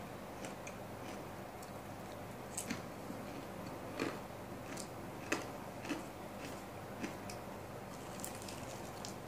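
Close-miked eating: chewing and mouth sounds, with scattered sharp, crisp clicks from bites of fried food. The two loudest clicks come about four and five seconds in.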